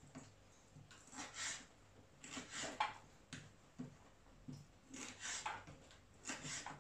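Knife slicing herring fillets into pieces on a wooden chopping board: about half a dozen short cutting strokes, some ending in a sharp tap of the blade on the board.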